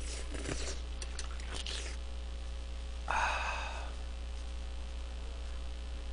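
Eating tray jjajangmyeon: faint clicks and scrapes of a utensil against the plate, then a short slurp of noodles about three seconds in.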